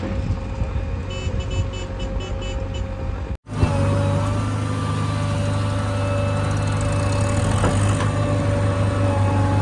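Diesel engines of a backhoe and tractors running steadily. Between about one and three seconds in comes a run of short high beeps, about three a second. A cut about a third of the way in drops to a brief gap, then a louder, closer engine takes over.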